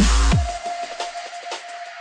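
Dubstep track with a heavy bass and falling synth sweeps that cuts off abruptly about a third of a second in, leaving a thin high-pitched electronic pattern of quick ticks and a steady tone.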